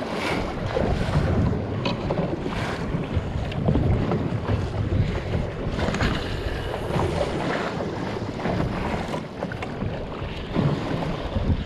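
Wind rumbling on the microphone over choppy sea water slapping against a small boat's hull.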